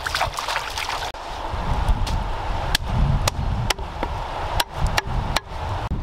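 Hands splashing and rubbing freshly pulled peanut pods in shallow stream water, busiest for about the first second. Then the stream runs on with a low rumble and a few scattered sharp ticks.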